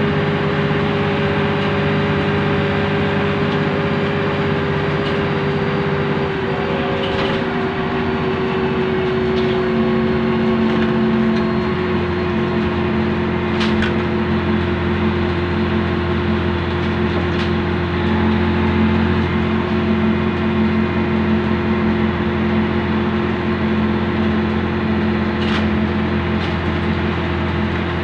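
Scania N113DRB double-decker bus under way, heard from the upper deck: its rear-mounted six-cylinder diesel and drivetrain running steadily with road noise. One whining tone sinks slightly in pitch over the first ten seconds, the engine note changes about seven seconds in, and a few light clicks sound from the body.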